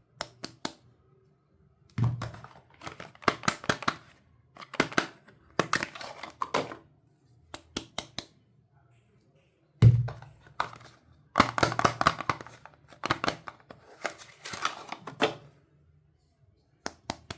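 Soap being unpacked by hand: bursts of wrapper crinkling and rustling with sharp clicks and taps, and a thud about two seconds in and again, louder, about ten seconds in.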